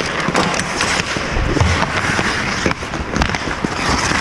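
Ice hockey play: skate blades scraping and carving the ice, with sharp clacks of sticks and puck scattered through.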